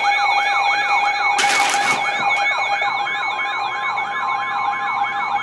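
Weather radio alert siren: an electronic tone that sweeps up and down about three times a second over steady tones, sounding to warn that a severe weather warning is being broadcast. A brief burst of hiss comes about a second and a half in.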